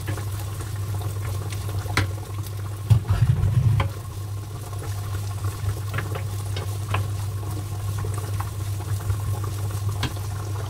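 Onion, garlic and carrots sizzling in a non-stick frying pan, with frequent short clicks and scrapes as a wooden spatula stirs them, over a low steady hum. A brief louder low thumping comes about three seconds in.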